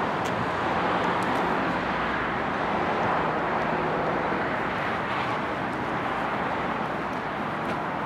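Steady outdoor traffic noise, an even roar of road traffic with a few faint ticks.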